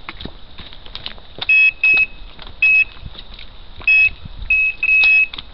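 Electronic bite alarm on a carp rod sounding in a string of six irregular single-tone beeps, the last one drawn out. This is the signal of a carp taking line on a bite.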